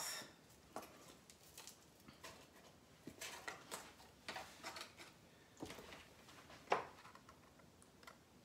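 Faint, irregular crinkles and clicks of a disposable aluminium foil pan being handled as rosemary sprigs are laid on salmon fillets, with one sharper click about two-thirds of the way in.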